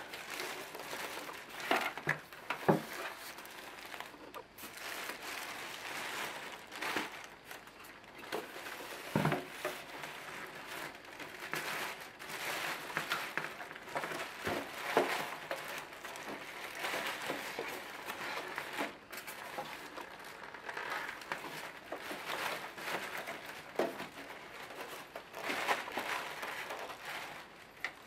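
Clear plastic bag crinkling and rustling as it is pulled and bunched by hand off an AV receiver, with a few sharp knocks along the way, the loudest near the start.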